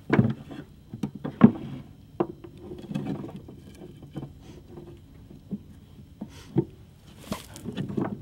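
Handmade wooden box trap being handled and set in place: irregular wooden knocks and clunks, the loudest about a second and a half in, with a short scuffing rustle near the end.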